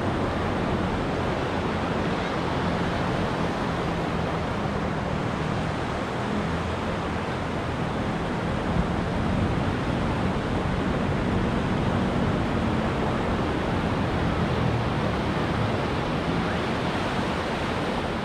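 Ocean surf washing onto a beach, a steady hiss of waves with little rise and fall.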